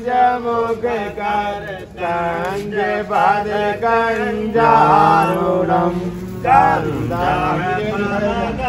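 A man chanting Hindu wedding mantras in a continuous sing-song recitation.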